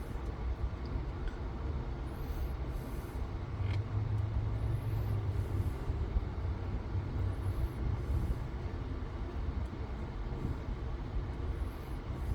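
Steady low rumble inside a pickup truck's cab, the engine idling, with one light click a little under four seconds in.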